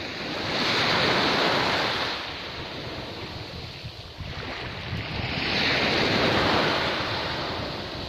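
Small waves breaking and washing up a sandy, pebbly beach. There are two surges of surf, about five seconds apart, each swelling and then fading.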